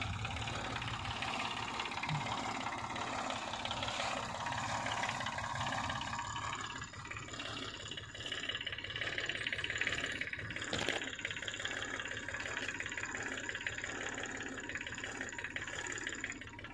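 Backhoe's diesel engine running steadily under work, with one sharp knock about eleven seconds in.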